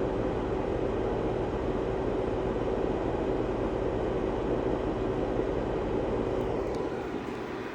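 Steady mechanical hum with a rushing noise and one held low tone, easing slightly in level near the end.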